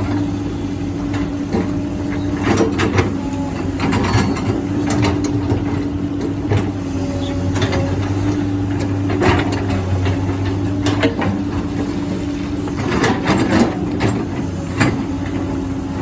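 Hydraulic excavator's diesel engine running steadily as it digs and loads, with scattered knocks and clatters through the work.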